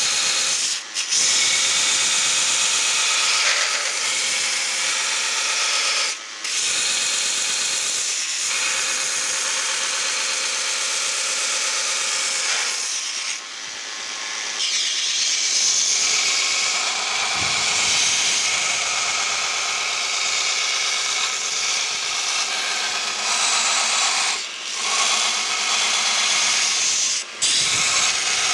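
Homemade belt grinder grinding a steel cleaver blank: a steady, loud abrasive hiss of belt on steel. It is broken by several brief drops, and it eases for a second or two midway, when the blank is off the belt.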